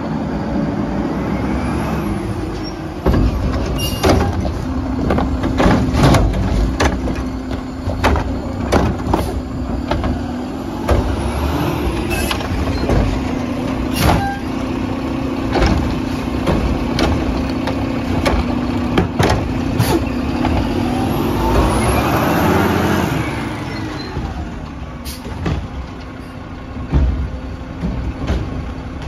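Garbage truck running with a steady engine drone, overlaid by many separate bangs and clanks of refuse handling. A louder surge of mechanical noise rises and falls about three-quarters of the way through.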